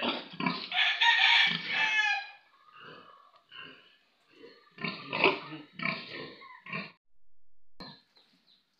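Pigs grunting: a louder drawn-out call over the first two seconds, then a run of short grunts.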